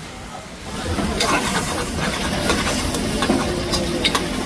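Glass noodles and pork belly sizzling and bubbling in broth in a shallow metal pan over a gas flame, with many sharp crackles. It grows louder about a second in.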